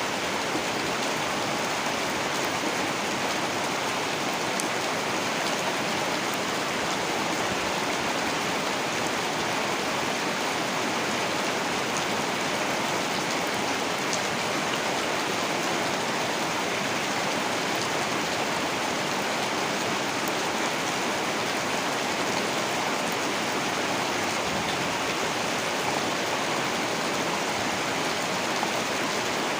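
Heavy rain falling in a steady, even downpour, with a few faint drop ticks.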